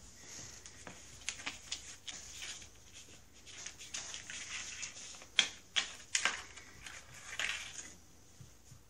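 Cat's paws scuffing and scratching on the bottom of a cardboard box as it bats at a coil spring toy, with a few sharp taps a little past halfway.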